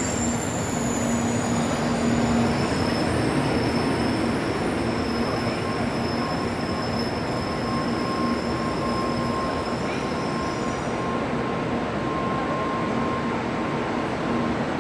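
N700A Shinkansen bullet train rolling slowly past along the platform: a steady rumble of wheels on rail, with thin high-pitched tones from the wheels or drive that fade out about eleven seconds in.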